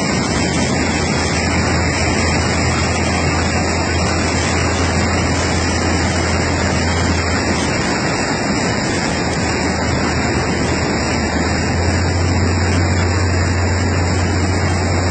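Boat engine running with a steady low hum under the loud, constant rush of churning river water breaking around the hull in a rough crossing.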